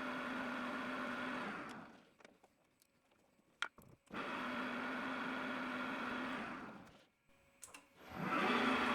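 Schaublin 125CNC lathe spindle motor running with a steady whine, spinning down to a stop, then starting up and running again twice. A sharp click falls in the first quiet gap and a few small clicks in the second.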